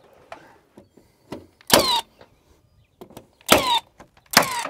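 Cordless 15-gauge finish nailer firing three times, each shot a short motor whir that falls in pitch, driving temporary nails to hold siding in place.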